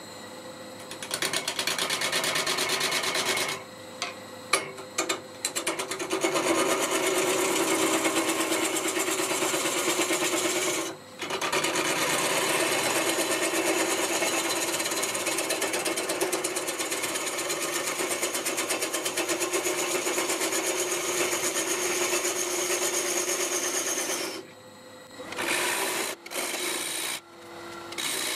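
Turning tool cutting into a spinning leylandii (conifer) blank on a wood lathe: a fast, even scraping chatter over the lathe's steady running hum. The cut stops briefly several times, with a longer break near the end.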